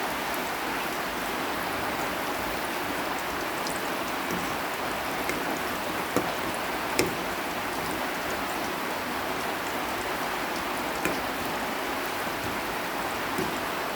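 Battered potato French fries sizzling steadily in hot frying oil, with a few sharp clicks about halfway through and again near the end.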